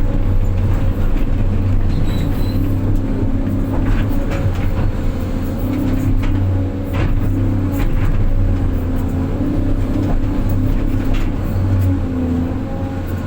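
Diesel engine of a six-wheel dump truck running steadily while under way, with a few knocks and rattles now and then.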